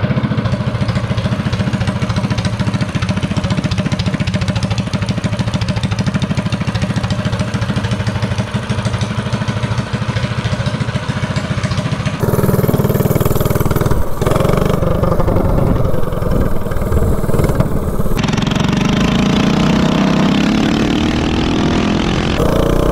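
DuroMax 208cc single-cylinder four-stroke minibike engine, fitted with a Mikuni VM22 carburetor and timing advanced about 8 degrees, idling steadily. About halfway through it runs louder as the throttle is worked, and near the end it accelerates with a rising pitch.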